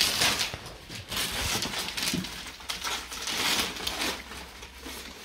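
Tissue paper rustling and crinkling in several separate bursts as a gift box is unpacked.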